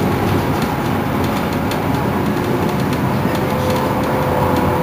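Iveco Crealis city bus running: a steady low drone with light ticks and rattles, and a steady whine that comes in about three seconds in.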